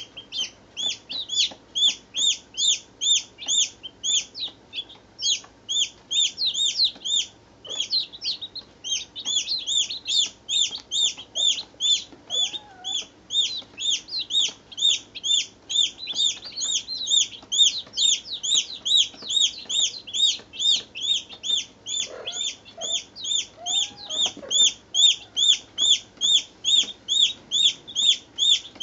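Baby chicks peeping continuously, a run of high, shrill peeps at about two a second.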